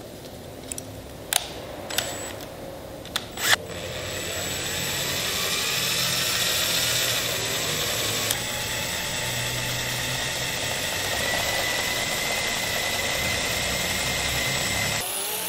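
A few sharp clicks, then a cordless drill starts about three and a half seconds in and runs slowly and steadily, its pitch rising as it speeds up and then holding. It is turning a steel rod that winds stainless-steel fence wire into a coil.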